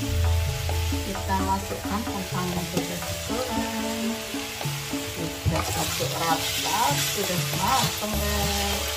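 Green beans, chilies and spice paste sizzling in an aluminium wok, a metal spatula stirring and scraping through them; about halfway, diced potatoes are tipped in and the sizzling grows brighter. Background music plays underneath.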